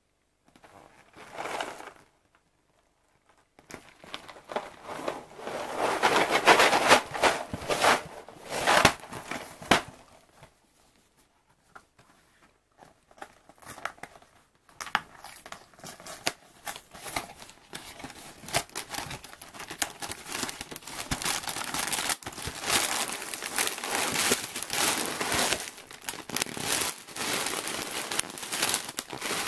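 Cardboard cereal box being handled and opened, then its clear plastic inner bag of cereal crinkling in the hands. Irregular crinkling and tearing, with a lull about ten seconds in before the crinkling goes on steadily.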